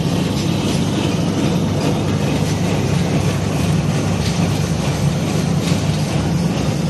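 Commercial electric meat-cutting machine running steadily: a loud, even motor hum with a faint light clatter over it.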